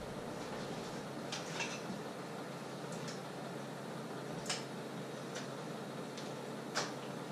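Pots heating on an electric stove: a steady low hiss with six or seven light, irregular ticks, the sharpest a little after the middle and near the end.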